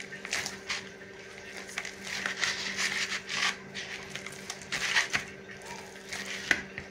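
Hand kneading soft, oiled wheat chapati dough in a plastic bowl: irregular squishing and pressing of the dough against the bowl, with one sharp click near the end.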